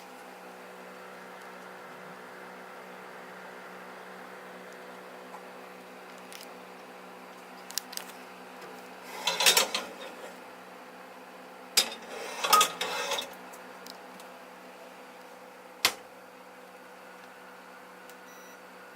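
Hard objects clinking and clattering in two short bursts, the first about halfway through and the loudest, the second a couple of seconds later, with a few sharp clicks before them and one near the end, over a steady low hum.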